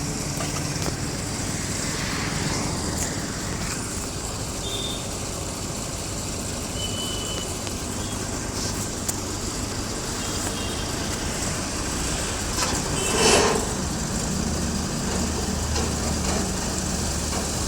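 Diesel engines of tractors being unloaded from a carrier truck, running steadily, with a few short high beeps and a brief loud hiss about thirteen seconds in.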